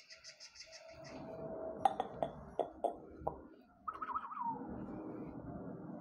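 Several sharp taps and knocks, then a short wavering call from an Aseel rooster about four seconds in.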